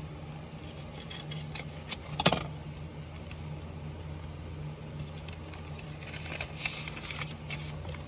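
Paper envelope being handled and opened, with rustling and small clicks and one sharp clack about two seconds in, over a steady low hum. Near the end comes a denser rustle as the contents are pulled out.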